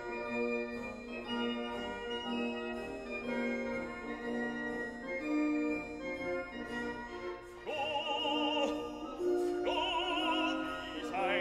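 Classical music with held organ-like chords, and a voice singing opera-style with wide vibrato that comes in in phrases from about two-thirds of the way through.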